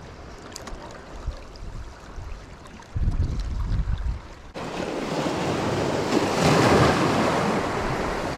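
Sea surf washing against rocks, with wind buffeting the microphone about three seconds in. A little past halfway a wave surges in as a loud rush of surf that swells, then stops abruptly.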